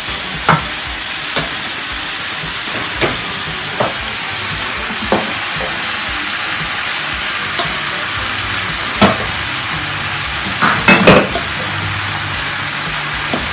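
Diced vegetables sizzling steadily in a hot frying pan, with sharp knocks of a wooden spatula and utensils against the pan, about one a second at first, one louder knock about nine seconds in and a quick cluster of louder knocks around eleven seconds. A low hum comes in about two-thirds of the way through.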